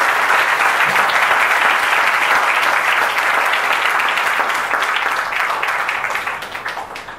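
Congregation clapping steadily, fading out near the end.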